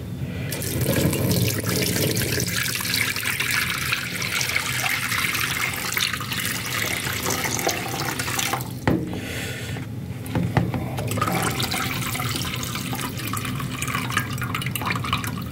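Water poured off a plastic container of soaked instant ramen noodles, splashing steadily into a stainless steel sink as the noodles are drained, with a couple of knocks partway through.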